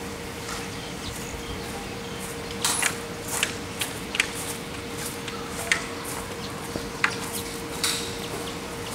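Scattered scuffs and short clicks of footsteps and shuffling on dry, gritty dirt as a person gets up and moves about, starting a few seconds in, over a steady faint hum.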